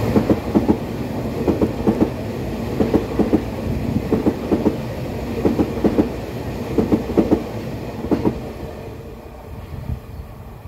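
Taroko Express electric multiple unit passing, its wheels clacking over rail joints in regular pairs as each bogie crosses. The clacking stops about eight seconds in and the running noise fades away.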